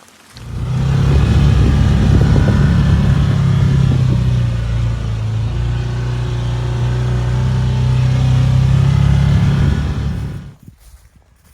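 A motor vehicle engine running close by, loud and steady with its pitch shifting slightly midway; it starts suddenly and cuts off about a second before the end.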